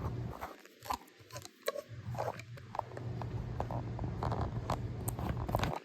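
Ceiling fan motor giving a steady low hum that drops out for about a second and a half early on, with scattered light clicks and rustles over it.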